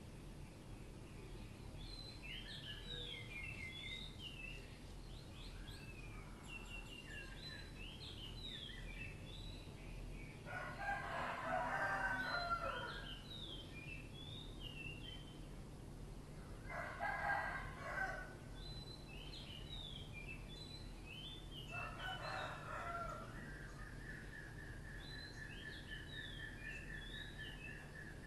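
Domestic rooster crowing three times. The first crow is the longest. Quick high chirps sound between the crows, and a fast even trill comes near the end over a steady low hum.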